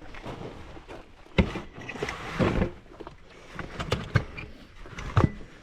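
A series of knocks, clicks and clatters from gear being handled: a sharp knock, a rattling stretch, then several clicks and a final sharp knock.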